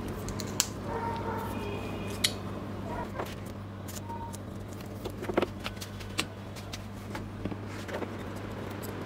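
Electrical tape being pulled and wrapped around a printer's small metal solenoid, with scattered sharp clicks and crackles over a steady low hum.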